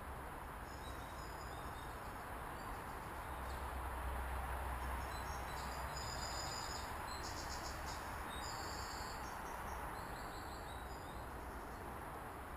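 Insects chirping in repeated short, rapidly pulsed high trills, over a steady rushing hiss.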